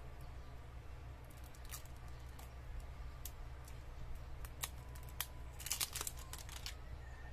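Clear plastic wrapping crinkling and crackling as it is pulled off an eyeliner pen, with scattered sharp crackles that come thick and loudest about six seconds in. A steady low hum runs underneath.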